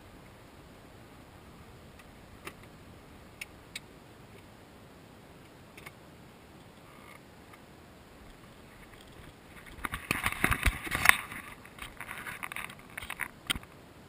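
Faint steady hiss with a few isolated clicks, then about four seconds of crackling, knocking noise starting about ten seconds in, loudest around the middle of that stretch.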